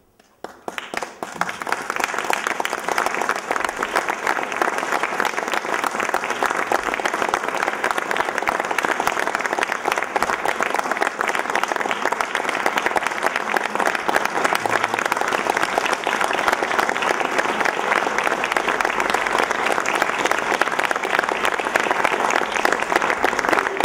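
Theatre audience applauding a curtain call: the applause breaks out about half a second in, builds within a couple of seconds, and holds as steady, dense clapping.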